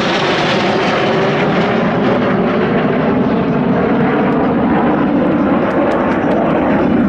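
Kawasaki C-1 military transport's two Pratt & Whitney JT8D turbofan jet engines, loud and steady as the aircraft flies past overhead.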